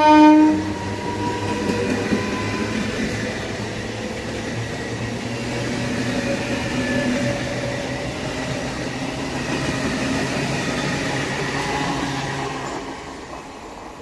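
Indian Railways train horn finishing a blast about half a second in, then the train running past with a steady rumble of wheels on rail that fades away near the end.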